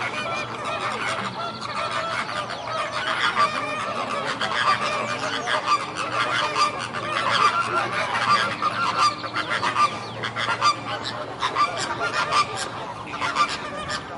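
A flock of flamingos calling, with many goose-like calls overlapping throughout.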